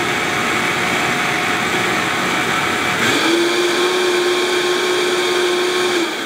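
Vitamix blender pureeing hot butternut squash soup. Its motor runs steadily, steps up to a higher pitch about halfway through, and drops back off near the end.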